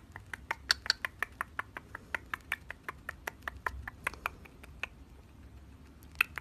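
Soft, quick clicks, about four a second, from a cockatiel's beak nibbling at a person's lips. They stop about five seconds in, and a few more come near the end.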